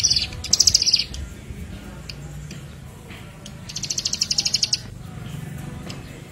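A small songbird sings short, high, rapid trills of evenly repeated notes. One trill comes in the first second and a second about four seconds in, with a few faint single notes between them, over a low steady hum.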